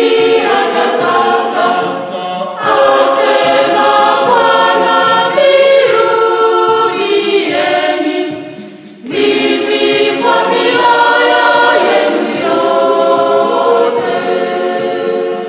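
Group of women singing a Swahili gospel song together as a choir, with a brief pause between phrases about eight seconds in.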